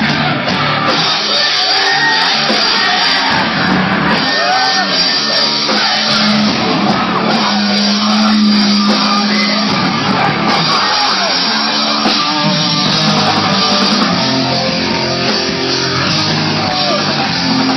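Southern metal band playing live at full volume in a large hall: distorted electric guitars, drums and shouted vocals.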